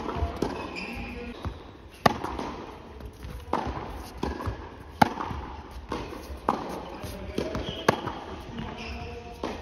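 Tennis rally on an indoor hard court: tennis balls struck by rackets and bouncing, a sharp pop every second or so, the loudest when the near racket hits.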